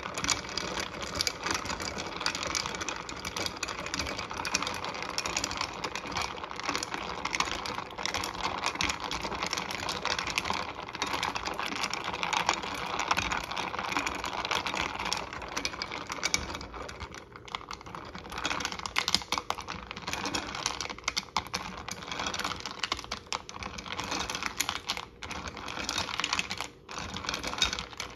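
A plastic ladle stirring a drink in a glass pitcher: a rapid, continuous run of small clicks and clinks against the glass, easing briefly past the middle.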